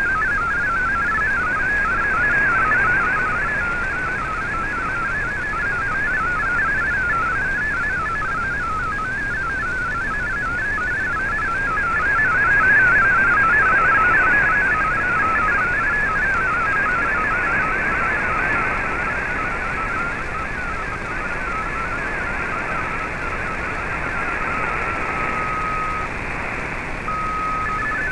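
MFSK32 digital data signal received on shortwave in AM mode: a rapid, warbling stream of hopping tones over steady radio hiss. Near the end the warble breaks into two short steady tones before resuming.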